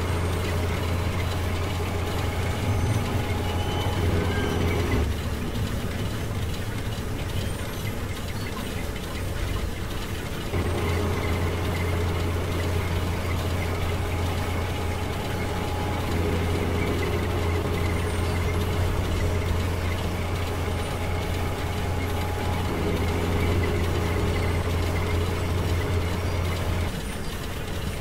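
Crane engine sound running steadily with a low drone and mechanical noise. The drone drops away about five seconds in, returns around ten seconds in, and stops shortly before the end.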